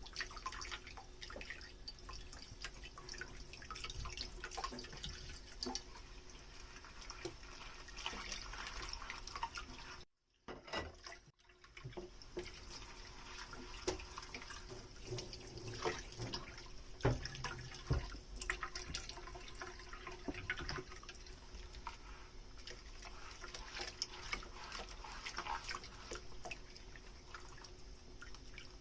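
Dishes being washed in a kitchen sink: running tap water and splashing, with frequent small clinks and knocks of dishware. The sound cuts out briefly about ten seconds in.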